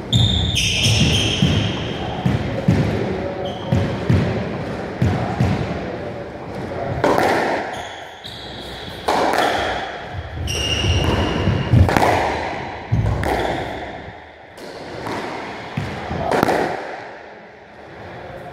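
A squash rally: the ball hits rackets and the court walls with sharp, echoing smacks about every second, while shoes squeak on the wooden floor in short high chirps.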